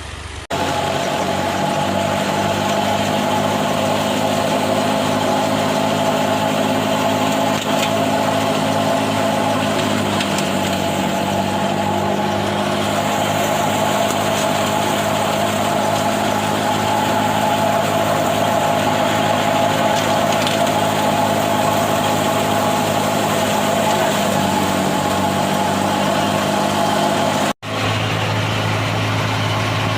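Heavy farm machine's engine running steadily, its pitch stepping down slightly about ten seconds in. The sound breaks off abruptly for an instant near the end.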